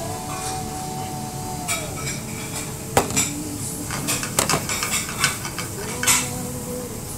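Metal pans clattering and scraping on a gas range as food is stirred and tossed over a high flame, with frying sizzle underneath. The sharpest clanks come about three seconds in, twice around four and a half seconds, and again about six seconds in.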